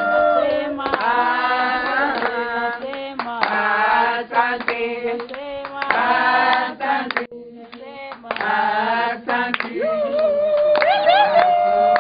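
Several women singing together, accompanied by hand clapping. The singing drops away briefly about seven seconds in, then resumes with rising vocal glides near the end.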